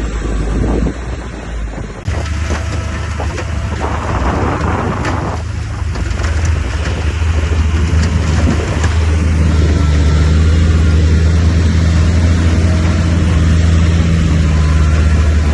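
Bulldozer's diesel engine running steadily under load, with clanks and a rush of rock and dirt being pushed during the first half.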